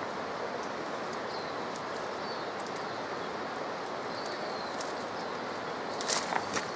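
Steady rushing background noise in native bush with a few faint, short bird chirps, then a quick cluster of sharp snaps and crackles of dry brush near the end.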